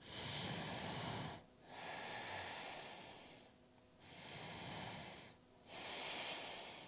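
A woman breathing deeply and audibly, four slow breaths of about a second and a half each with short pauses between.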